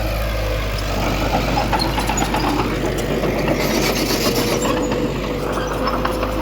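Heavy diesel earthmoving machinery running steadily, with a run of metallic clanks and rattles through the middle and a brief hiss.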